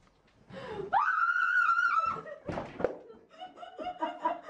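A person, likely the woman, screams: one high, loud cry held for just over a second. A couple of thuds follow as she goes down, then laughter.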